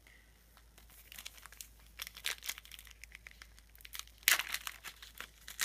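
Trading card pack wrapper crinkling and tearing open: a run of crackles with louder bursts about two seconds and four seconds in.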